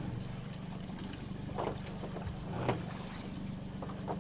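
Boat's outboard motor idling steadily while a wet pot rope is hauled in over the side by hand, with a few brief knocks and splashes from the rope work about a second and a half in, near the middle and at the end.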